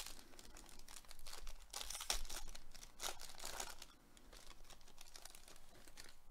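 A foil baseball card pack wrapper being torn open and crinkled by gloved hands, a run of crackly crinkling that is busiest in the middle and softer near the end.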